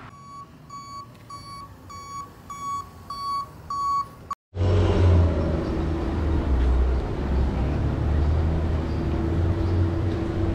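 A vehicle's reversing alarm beeping about twice a second, each beep louder than the one before, until it cuts off abruptly. It is followed by a steady low rumble with a constant hum, as of traffic or an idling engine on a city street.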